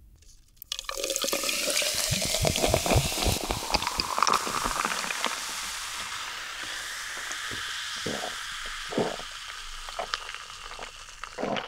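Coca-Cola poured from a bottle over ice into a glass jar, starting about a second in, with ice cubes clinking against the glass and the cola fizzing. The fizz carries on steadily, and a few gulps come near the end as it is drunk.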